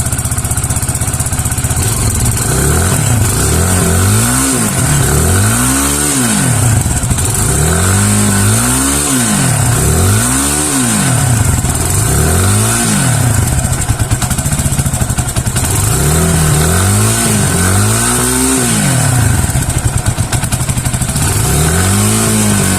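Vortx 250 motorcycle engine on its stock exhaust, idling and then revved in about ten quick blips, each rising and falling back to idle. The engine is still cold, which the owner says leaves it not running well on the carburettor.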